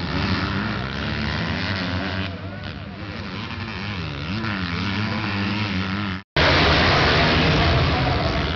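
Several motocross bike engines revving up and down as the riders race around the track, the pitch rising and falling repeatedly. About six seconds in the sound cuts out for a moment and comes back louder and harsher.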